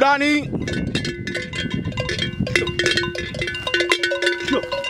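Metal bell hung on a grazing bull's neck, clanking irregularly as the bull moves its head to crop grass; each clank rings briefly at the same few pitches.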